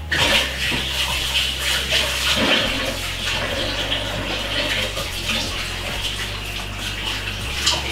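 Kitchen tap running steadily while hands are rinsed under it.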